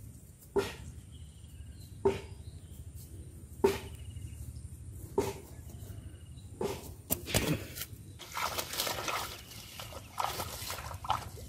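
Footsteps through grass and leafy weeds, a sharp thud about every second and a half, giving way to denser rustling and crackling of leaves and stems in the last few seconds.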